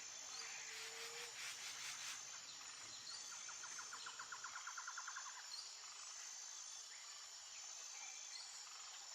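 Faint outdoor ambience: insects chirring steadily in a high pitch, with scattered bird chirps and a rapid pulsed trill, about nine pulses a second, from about three to five and a half seconds in.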